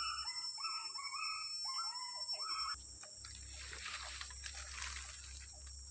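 Animal calls from overhead: a quick series of short notes, each bending in pitch, that stop abruptly under three seconds in. Faint crackles follow.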